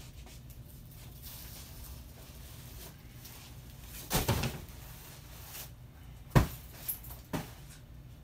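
Handling noise as someone lifts wrapped padded bundles off a stack and sets them on the floor: a burst of rustling and bumping about four seconds in, then a sharp knock and two lighter knocks.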